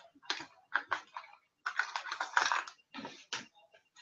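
Hard plastic fishing lures with treble hooks clicking and clattering as they are handled and pulled apart, a run of light sharp clicks that is densest about halfway through.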